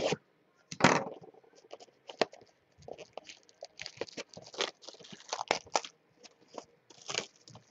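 A Bowman's Best baseball card box being opened, its contents in a plastic wrapper crinkling and tearing as they are unwrapped, in a string of short, irregular crackles. The loudest crackle comes about a second in.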